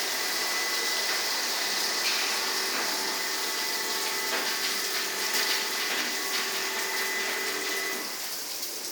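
Touchless automatic car wash machine spraying high-pressure water: a steady hiss of spray with a faint machine whine, easing off briefly near the end.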